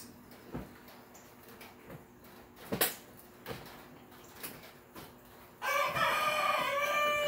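A few soft knocks and one sharp snap of plastic parts being clipped together. About six seconds in, a loud, long animal call begins, lasting a couple of seconds and falling in pitch at its end.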